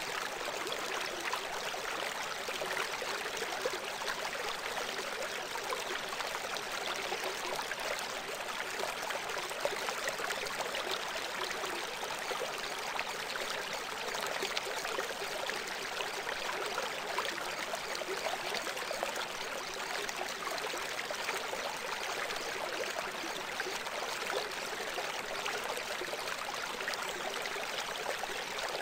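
Steady running water like a stream, an even rushing hiss with little low end and no change throughout; the cover sound of a subliminal audio track.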